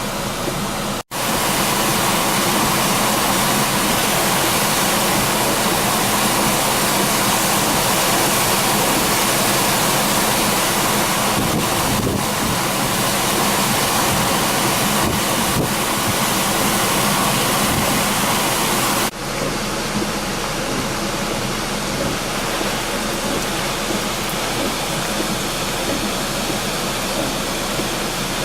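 Swollen, rain-fed river rushing in flood, a loud steady roar of water. It breaks off for an instant about a second in and turns slightly duller about two-thirds of the way through.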